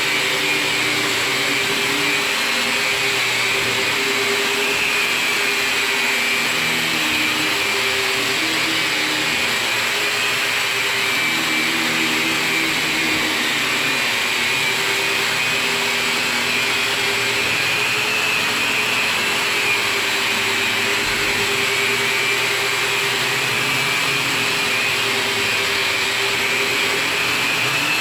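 Electric drywall sander with 240-grit paper running steadily as it sands drywall. It makes a constant motor hum with a higher whine over a rushing hiss.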